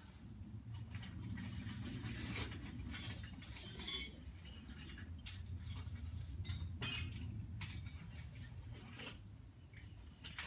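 Small metal tools and carburetor parts clinking as they are handled, with two sharper clinks about four and seven seconds in, over a steady low hum.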